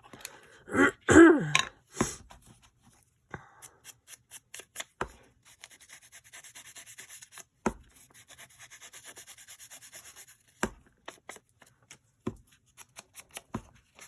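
A woman clears her throat about a second in. Then paper is handled at a craft table: scattered taps and clicks, and several seconds of fast, scratchy rubbing of paper in the middle.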